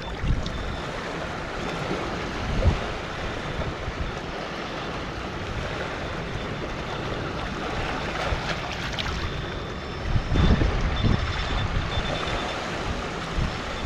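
Wind and small river waves washing along the shore as the tide comes in, with wind gusting on the microphone from about ten seconds in.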